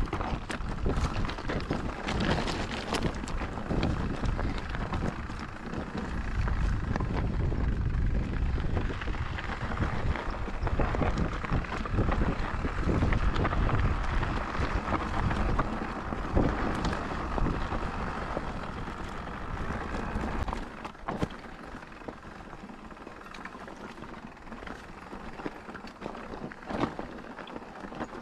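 Mountain bike ridden along a dirt trail: wind buffeting the camera microphone over tyre rumble and the rattling clicks of the bike. About twenty seconds in the wind and rumble drop away, leaving quieter rattling.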